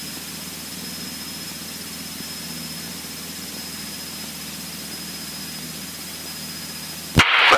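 Steady drone of a Cessna 152's engine and propeller in flight, heard inside the cockpit, with a faint high whine over an even hiss.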